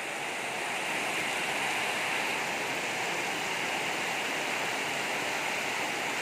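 Heavy rain pouring down steadily: an even, unbroken hiss of downpour.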